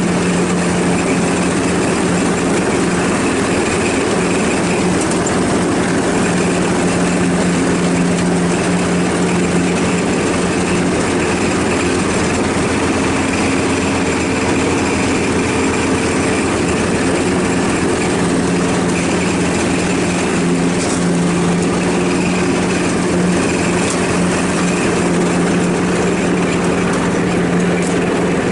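Ride-on lawnmower engine running at a steady, unchanging speed.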